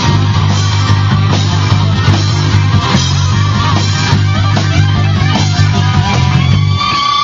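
A live rock band plays loudly: electric bass, a drum kit with cymbals, and electric guitar. Near the end the bass and drums drop out, leaving one held high note ringing.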